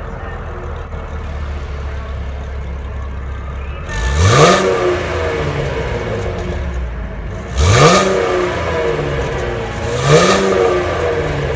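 2016 Chevrolet Camaro's 3.6-litre V6 idling steadily, then revved three times in quick throttle blips. Each blip rises fast in pitch and drops back to idle.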